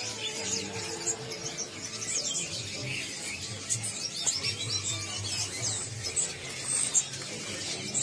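Many caged songbirds chirping and calling together in a continuous, overlapping mix of short high chirps and quick whistled sweeps, over a steady low background hum.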